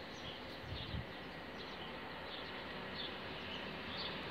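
Small birds chirping in short repeated calls over a steady outdoor hiss, with a brief low thump about a second in. The faint rumble of an approaching diesel multiple-unit train slowly grows louder toward the end.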